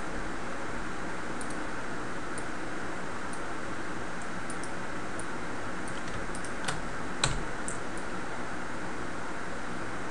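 Scattered light clicks of computer keyboard keys and a mouse, with two louder clicks about seven seconds in, over a steady hiss.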